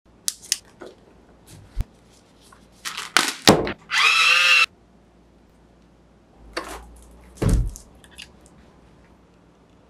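Close handling of a tripod box and its parts: sharp clicks and taps, then a bright half-second whirr about four seconds in as a tape measure's blade retracts. A heavier thump comes near the end.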